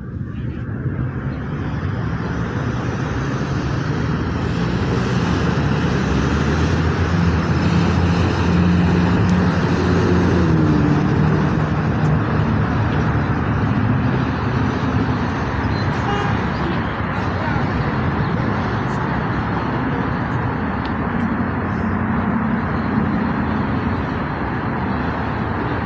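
A train passing: a steady rumble with a low engine drone and rolling noise, building over the first several seconds and then holding.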